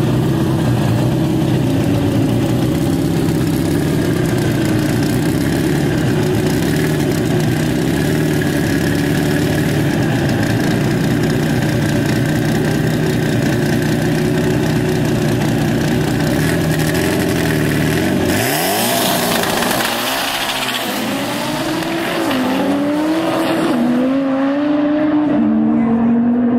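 Drag-race Volkswagen Beetle's engine running steadily at the start line, then rising and falling in pitch in repeated sweeps over the last several seconds.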